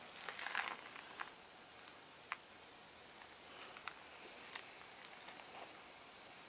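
Faint forest ambience: a steady hiss of running stream water, a thin steady high insect-like tone, and faint chirps of small birds. Scattered light clicks and crunches sound over it, a cluster in the first second and single ones after.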